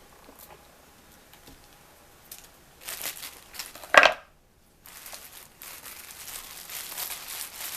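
A knife cutting through raw cauliflower florets on a cutting board: crisp crunching and crackling, with one loud sharp snap about four seconds in.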